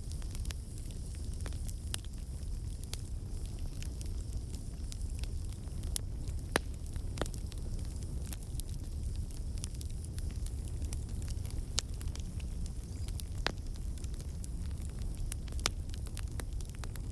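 Campfire burning: a steady low rumble of flames with sharp crackles and pops every second or so, the loudest pop about six and a half seconds in.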